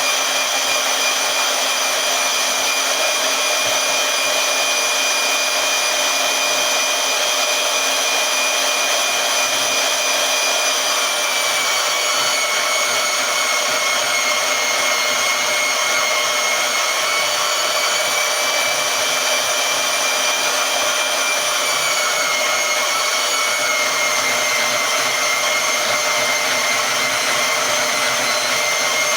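Harbor Freight portable band saw running steadily while cutting quarter-inch metal with an oiled blade, its motor whine dipping slightly in pitch twice under the load of the cut.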